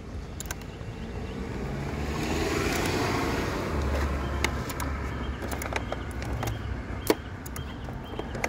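A motor vehicle running nearby, its low rumble swelling for a couple of seconds and then settling, with a few sharp clicks, the loudest about seven seconds in.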